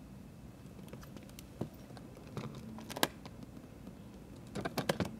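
Sharp clicks and taps of a hard-shell ukulele case being handled: a couple of single knocks, then a quick cluster of clicks near the end as its metal latches are snapped open.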